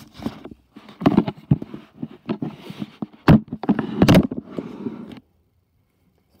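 Handling noise from a handheld phone being moved about: irregular rustling bursts and a few sharp knocks, stopping about five seconds in.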